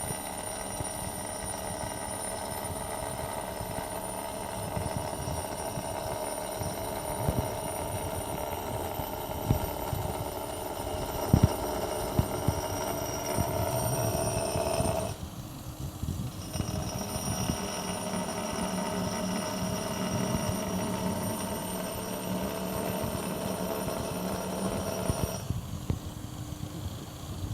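Milling cutter running steadily as it cuts flutes into marble, a constant whine with scattered knocks. The sound drops away briefly about halfway through and again near the end.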